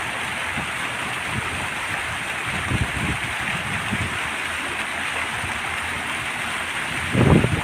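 Fountain water falling and splashing in a steady rush. Low thumps come about three seconds in and, louder, near the end.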